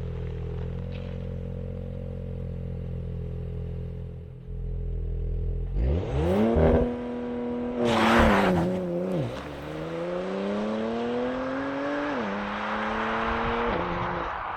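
Porsche Macan Turbo's twin-turbo V6 idling steadily, then revving up quickly and holding the revs before the car pulls away. It accelerates hard, the pitch climbing through the gears with two upshifts near the end.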